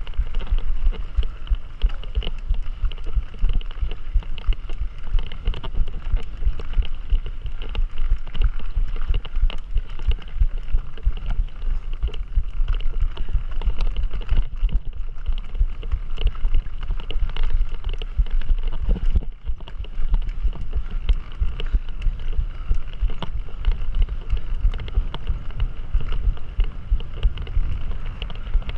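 Mountain bike being ridden over a rough trail: a steady deep rumble of wind and bumps buffeting the microphone, with a faint higher rattle over it.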